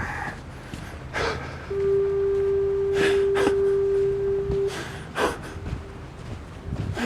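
Foghorn sounding one steady, low-pitched blast of about three seconds. Short breathy puffs come before and after it.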